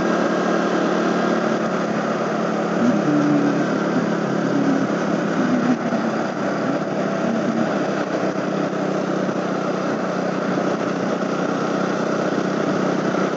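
KTM RC 200 single-cylinder engine running on the move, mixed with steady wind and road noise, heard through a headset mic inside the rider's helmet. A wavering low tone rises over it from about three to six seconds in.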